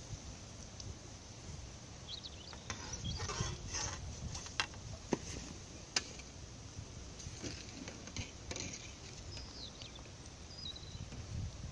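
Splashes, drips and knocks as a landing net is dipped into pond water, lifted out and handled on its pole, heard over a low rumble.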